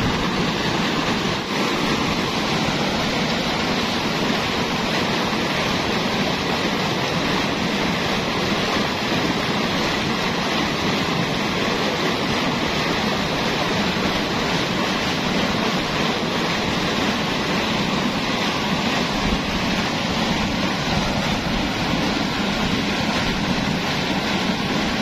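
Pumped canal water gushing steadily from a large outlet pipe and splashing into a concrete tank, a loud, even rush.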